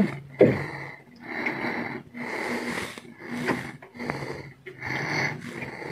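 Heavy, wheezing breathing of the person holding the camera, close to the microphone: about seven ragged breaths in quick succession with a faint whistle in them.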